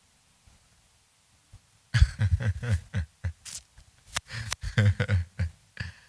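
About two seconds of near silence, then a man's voice in short, broken snatches that are not clear words, with a few sharp clicks near the middle.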